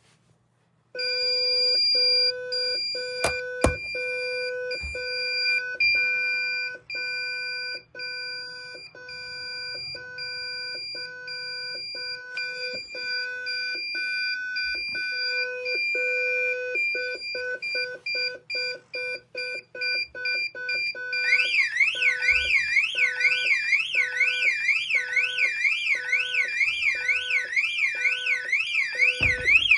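Ademco Microtech Galaxy 8+ intruder alarm system sounding. A steady electronic tone, at first long with short breaks, pulses faster and faster, with a sharp click about three seconds in. About 21 seconds in, the external bell-box siren starts sweeping up and down about twice a second over the pulsing tone: the system has gone into full alarm.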